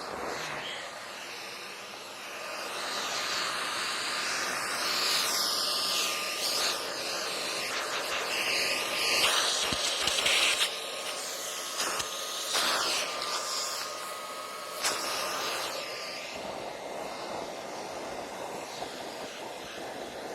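A 6-gallon shop vac running and sucking up snow: a steady rush of air with a thin whine, swelling in louder hissing surges in the middle stretch. Ice has built up inside it, cutting its suction.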